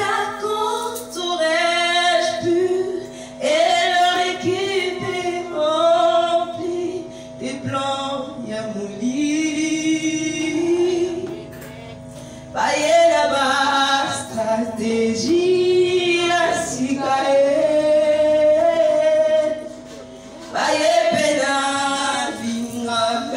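A woman singing a gospel song into a microphone through a PA, in long held, gliding phrases with short breaks, over a steady electrical hum.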